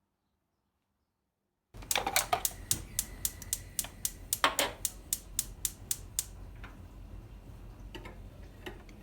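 A quick run of sharp taps and knocks, about three or four a second, starting nearly two seconds in and giving way to fainter, sparser taps after about six seconds, over a low steady hum.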